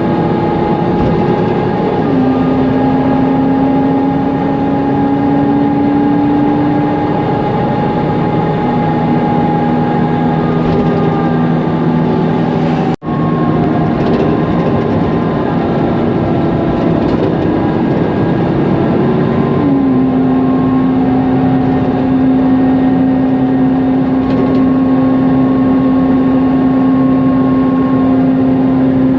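Interior ride noise of a Mercedes-Benz Conecto NGT city bus under way: its loud cooling fan and Mercedes-Benz M936G gas engine whine steadily over a rumble, the pitch rising slowly, then dropping and jumping up again a couple of times as the bus changes speed. The sound cuts out for an instant about halfway through.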